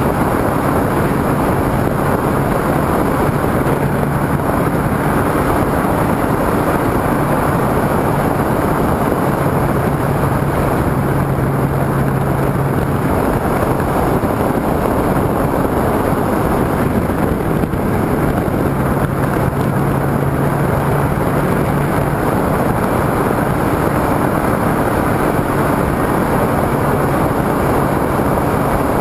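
Steady rush of airflow buffeting a camera mounted on a flying radio-controlled motor glider, with the glider's propeller motor humming low underneath and coming and going several times.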